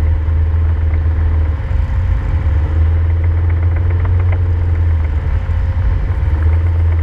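Side-by-side UTV engine running at low speed, a steady low drone that turns briefly unsteady about two seconds in.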